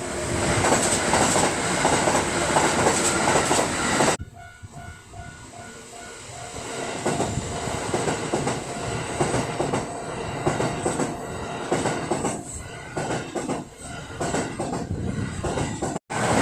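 Kintetsu Osaka Line electric trains passing over a level crossing, wheels clattering on the rails. The sound cuts off suddenly about four seconds in. The crossing's warning bell then rings in a steady repeating ding for a couple of seconds while the next train's rumble and clatter builds up.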